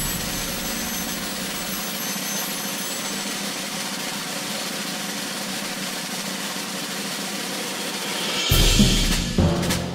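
Soundtrack music: a steady hissing build-up, then loud low orchestral drum hits starting about eight and a half seconds in.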